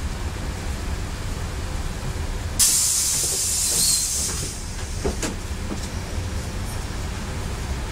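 Scania city bus engine running with a steady low rumble heard from inside the cabin. About two and a half seconds in comes a sudden loud hiss of compressed air from the bus's air system, lasting about two seconds, as the bus pulls away from the stop.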